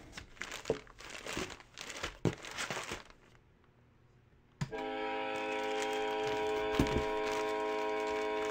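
Plastic packaging rustling and crinkling in short bursts as an item is handled in a cardboard box. About halfway through, background music starts suddenly with a steady held chord and goes on louder than the rustling.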